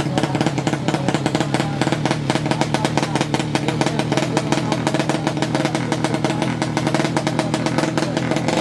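Drag-race motorcycle engine, a 200cc horizontal-cylinder 'sleep engine', idling with a rapid, even beat of about nine pulses a second.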